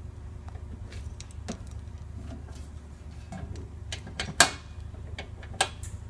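Clicks and knocks from a hand working the hotbox's metal control panel enclosure, with two sharp metallic clacks about four and a half and five and a half seconds in, over a steady low hum.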